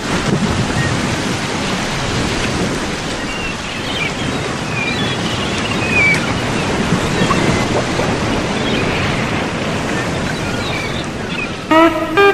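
Ocean surf washing in a steady rush, with short high chirps over it. Music with plucked notes starts just before the end.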